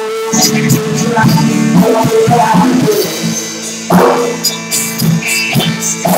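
Band practice: guitar and drum kit playing a blues-rock song, loud and rough through a cheap microphone, with a hard drum hit about four seconds in.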